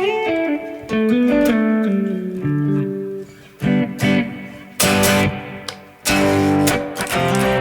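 Electric guitar, a Telecaster, played through a Strymon BigSky MX reverb pedal: a falling run of single notes, then several struck chords, each ringing on in a long reverb tail.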